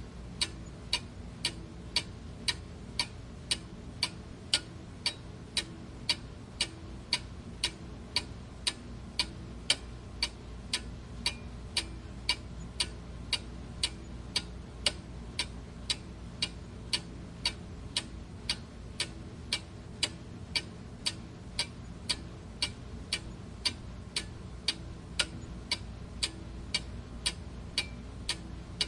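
Clock ticking steadily, sharp evenly spaced ticks at about two a second, over a low steady hum.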